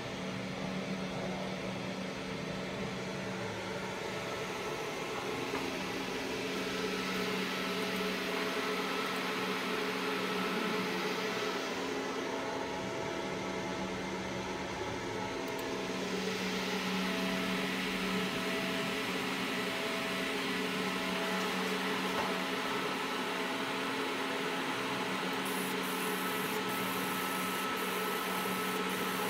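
Steady hum of a fiber laser marking machine's cooling fans, a few even tones over a broad hiss. A higher hiss with a few light clicks comes in near the end.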